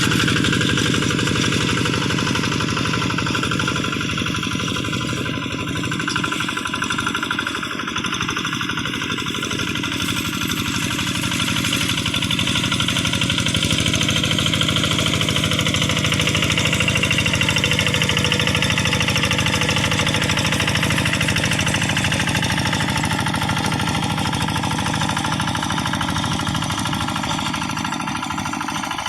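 Kubota RD85Di single-cylinder diesel engine on a hand tractor running steadily with a hard, rapid knock, its speed shifting slightly about halfway through.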